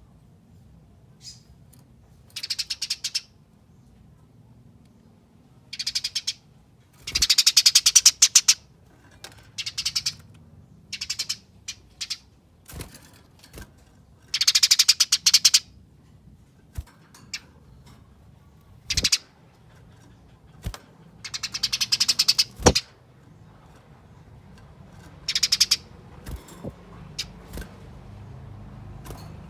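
Eurasian tree sparrow giving its fighting chatter: about nine or ten bursts of very fast, dense, rattling high-pitched calls, each lasting under a second to about a second and a half, with pauses between them. A few sharp single clicks fall between the bursts.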